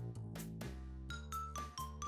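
Background music: a light instrumental with a steady beat, ringing high notes over a held bass line.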